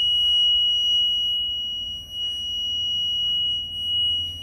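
A continuous high-pitched electronic tone, like a buzzer or alarm, held at one steady pitch without breaks over a low hum.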